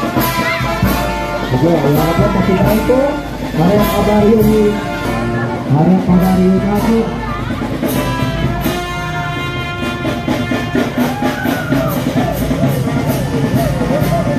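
Brass band music: horns playing a tune over a steady drumbeat.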